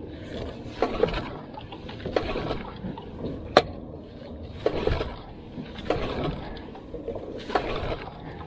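Yamaha 9.9 outboard being pull-started by hand: about six yanks of the recoil starter cord, each a brief whirr of the engine turning over. It does not catch, so it is hard to start and needs several pulls.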